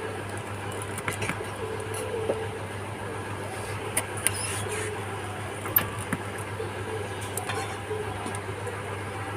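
Small repair tools clicking and tapping against a smartphone's parts during disassembly: a few short sharp clicks scattered over a steady low hum.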